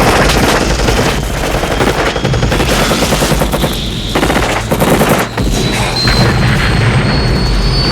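Sustained rapid automatic gunfire, a dubbed machine-gun sound effect, with a high whine slowly rising in the second half.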